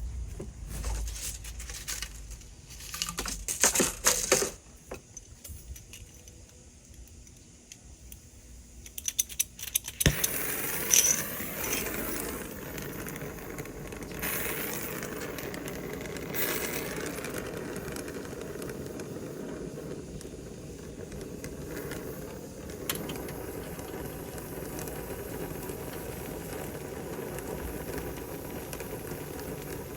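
Metal tools and fittings clinking and rattling in short clusters. About ten seconds in, a steady rushing noise starts suddenly and runs on unchanged.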